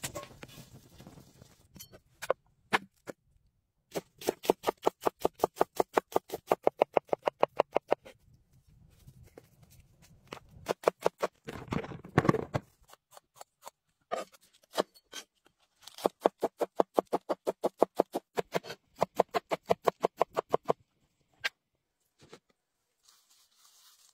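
Knife chopping on a wooden cutting board in fast, even runs of about six strokes a second, cutting chillies and greens. There are two long runs and a few shorter bursts.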